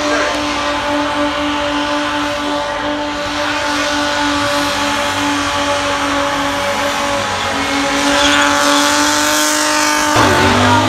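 A burnout car's engine held at steady high revs, with its rear tyres spinning and squealing against the track. Near the end, music comes in.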